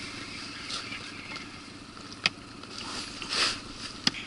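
Hooked young taimen splashing at the water's surface beside an inflatable boat: a couple of sharp knocks and one larger splash about three and a half seconds in, over a steady low hiss.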